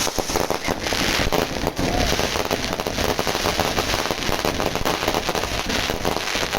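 Fireworks crackling and popping in a dense, rapid, unbroken run of small bangs.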